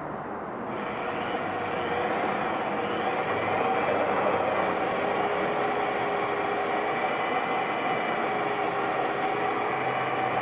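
Drill running with its bit grinding into glass lubricated with a drop of oil: a steady whir with a slightly wavering pitch that builds over the first couple of seconds, then holds.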